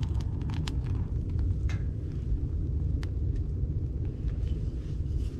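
Finnish candle (split-log fire) burning hard: a steady low roar from the air drawing through the gap between the log halves, with scattered sharp crackles.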